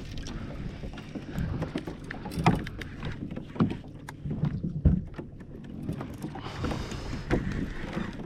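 Irregular knocks and water sounds on a fishing kayak during a fish fight, with a brief rushing hiss about seven seconds in.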